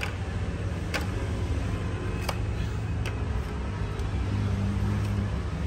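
A few sharp clicks and knocks, about a second apart, as plastic Yamaha Yaz motorcycle body panels are turned over and set together, over a steady low vehicle rumble.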